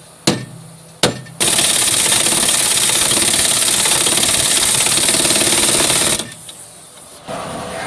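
Impact wrench hammering for about five seconds in one continuous burst, after a couple of sharp metallic clicks.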